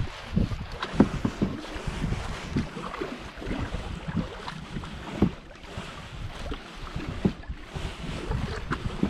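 Water splashing and lapping against a canoe, with irregular small knocks, while wind buffets the microphone.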